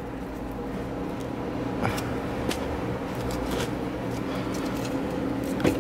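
Steady mechanical hum of a fan or motor running in a small room, with a few light clicks.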